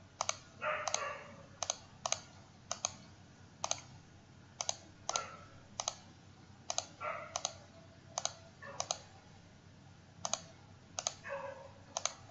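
Computer mouse buttons clicking sharply at an irregular pace, about one to two clicks a second, as beams are placed node by node. A few short soft rustles fall between the clicks.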